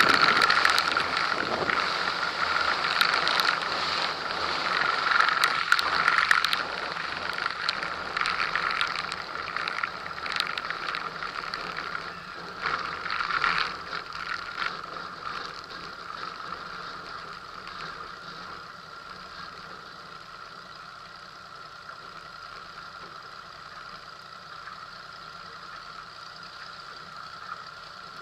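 A Cessna T210's engine and propeller running at low power while the plane rolls over a rough grass strip, with rattling and bumping from the landing gear on the uneven ground. The rattle and rushing fade over the first half as the plane slows to a taxi, leaving a steady engine hum.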